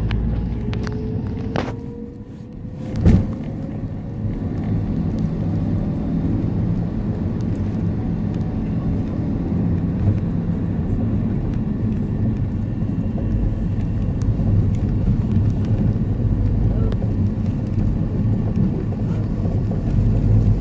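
Engine and road noise heard from inside a moving vehicle, a steady low rumble. A single sharp knock sounds about three seconds in.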